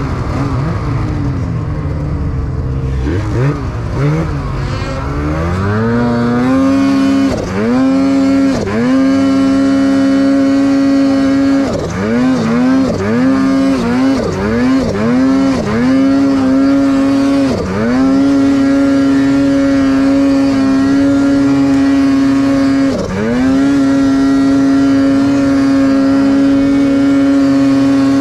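Polaris Khaos two-stroke snowmobile engine on the move: low, wavering revs for the first few seconds, then pulled up to high steady revs and held there. The revs drop and recover briefly each time the throttle is eased, in a quick run of dips in the middle and a few single ones around it.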